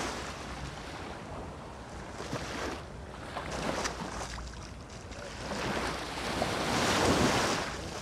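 Small sea waves breaking and washing up over the sand at the water's edge, the wash swelling and easing, loudest about seven seconds in.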